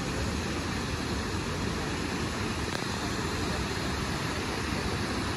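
Waterfall's water rushing, a steady even roar of falling water.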